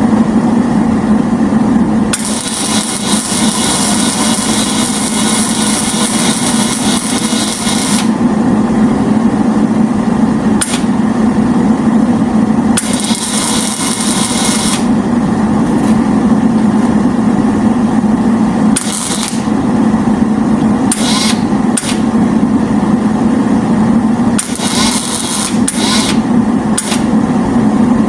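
Welding in bursts of a few seconds each, a crackling hiss that starts and stops sharply as each weld is laid on the metal flower pieces, over a steady machine hum. The longest weld runs about six seconds near the start, with shorter tack-like bursts later.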